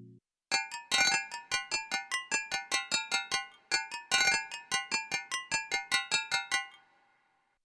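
Nord Drum 3P electronic percussion synth playing a bell-like chime preset in a sequenced rhythm pattern: quick, even metallic strikes, about five a second. The run has a brief break midway and stops shortly before the end.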